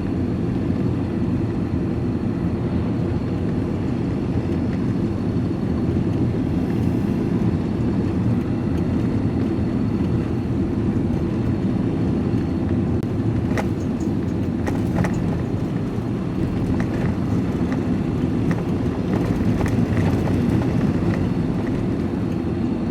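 Steady road and engine noise inside a van's cab while driving, with a few faint, irregular clicks in the second half.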